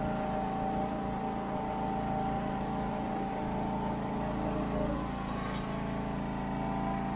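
John Deere LX172 lawn tractor's 14 hp single-cylinder OHV engine running steadily as the tractor drives along.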